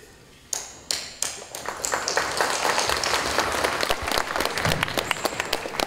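Audience applause: a few scattered claps about half a second in, building by about two seconds in to a whole crowd clapping steadily.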